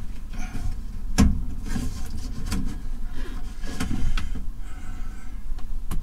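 Hands working at a built-in microwave and the plywood panel above it: scattered knocks, scrapes and rattles, with a sharp knock about a second in and another near the end, over a steady low hum.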